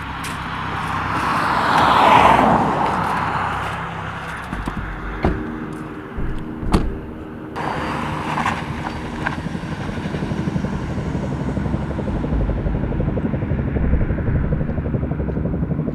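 A car passing, its rushing sound swelling to its loudest about two seconds in and then fading, followed by a couple of sharp knocks and a steady low rumble of traffic or a running engine.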